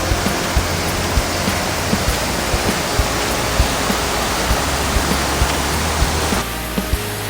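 Waterfall rushing with a steady, even noise of falling water, under background music with a steady beat; the water noise drops away sharply about six seconds in.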